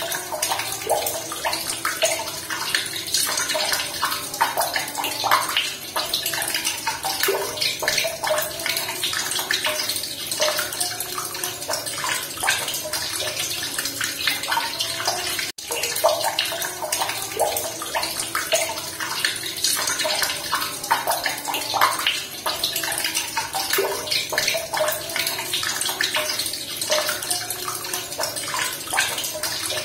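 Running water splashing and gurgling steadily, with many small bubbling plops. It cuts out for an instant about halfway through.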